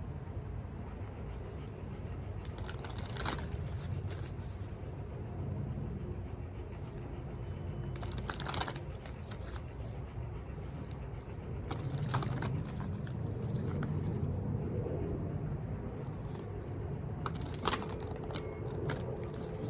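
Oracle card deck being shuffled by hand: a soft papery rustle broken by a few sharp clicks.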